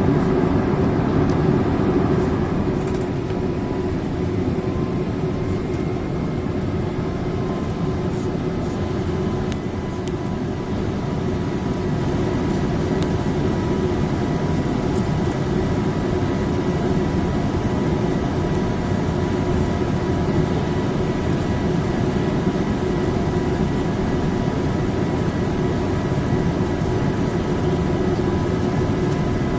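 Cabin noise inside a Boeing 787-8 Dreamliner in flight: a steady, deep rush of airflow and engine noise with faint thin whine tones above it, dipping slightly a few seconds in and building back up.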